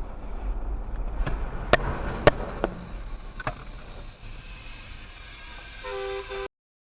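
Low rumble of a vehicle on the road, with a run of sharp bangs and knocks about one to three and a half seconds in, two of them much louder than the rest. Near the end a short electronic tone sounds, then the sound cuts off suddenly.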